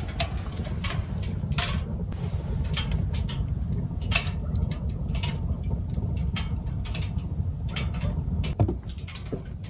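Wood fire burning in a camping wood stove, crackling with irregular sharp pops over a steady low rumble, one louder pop near the end.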